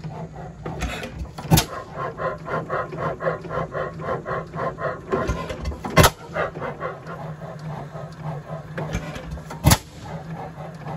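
8 HP 1903 Columbus Camstopper hit-and-miss engine running: three sharp firing strokes a few seconds apart, with a rhythmic clatter of about four beats a second as it coasts between firings.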